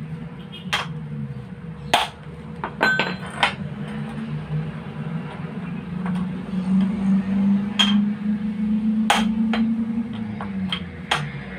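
Hammer striking an impact screwdriver to loosen the screws of a radiator fan unit: about a dozen sharp metallic strikes at irregular intervals, some in quick pairs. A low wavering hum runs underneath.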